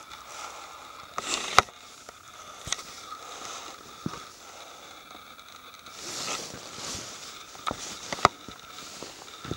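Footsteps and handling noise from walking over pine-needle forest floor with patches of snow: irregular crunches and rustles with scattered sharp clicks, the loudest about a second and a half in and near the end.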